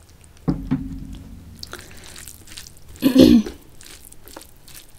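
A woman's short, low hum about half a second in, then a louder throat-clearing sound about three seconds in. Faint wet squishes and clicks come from rice and dal being mixed by hand.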